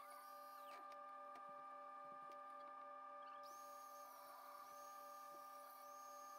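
Angle grinder grinding steel, heard faintly as a steady whine. A higher whine rises about three and a half seconds in and drops away near the end.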